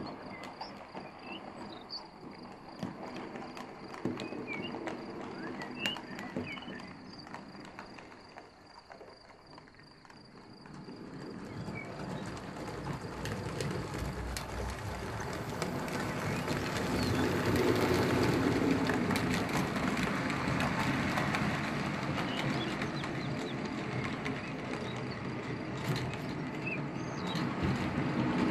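Narrow-gauge HO model train, built from Bemo models, running on the layout's track: a rumble of wheels and motor with scattered clicks over rail joints. From about eleven seconds in it grows steadily louder as a train approaches and runs past close by, staying loud to the end.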